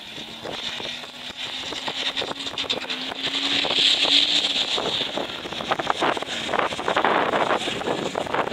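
Wind buffeting the microphone, gusting louder from about three seconds in, over a Ford Bronco's engine driving on sand, heard as a faint steady hum that rises slightly in pitch during the first half.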